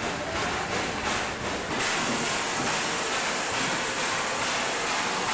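Baldwin steam locomotive standing and letting off steam: a loud, steady hiss that grows stronger in the highs about two seconds in.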